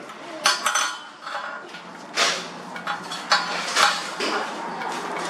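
Metal pieces clinking and knocking together several times, with a short metallic ring after each knock. A steady low hum sets in a little under two seconds in.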